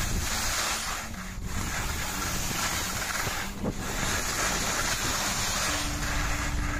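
Wind rushing over the microphone and skis hissing and scraping over soft snow on a fast downhill run, a steady noise that dips briefly twice.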